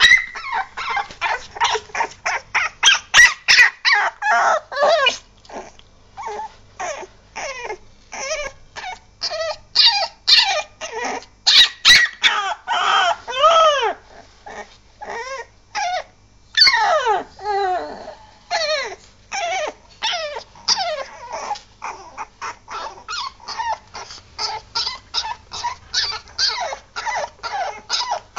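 Very young Staffordshire bull terrier puppy crying: a rapid, unbroken string of short high-pitched yelps and whines, several a second, with now and then a longer squeal whose pitch rises and falls.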